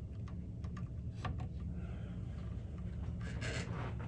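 Multimeter test probes clicking and scraping lightly against solder points in a cassette deck's power supply, with several small clicks in the first second and a half and a brief scrape near the end, over a steady low hum.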